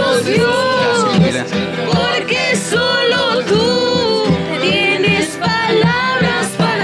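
Music with singing: a voice sings a bending melody over a steady instrumental accompaniment.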